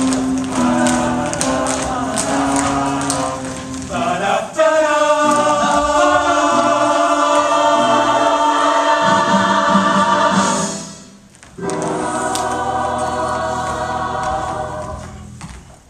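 Choir singing a choreographed number with music. A long loud held passage runs from about four and a half seconds in, breaks off briefly near eleven seconds, then the singing resumes and fades out near the end.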